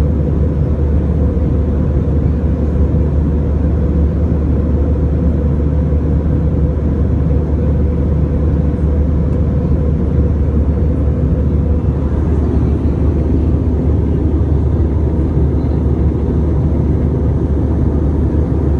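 Jet airliner cabin noise in cruise, heard from a window seat: a loud, steady rush of engine and airflow noise, heavy in the low end, with a faint steady hum.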